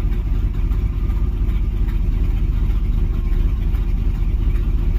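Carbureted 305 H.O. small-block Chevrolet V8 idling steadily while it warms up after a hard start.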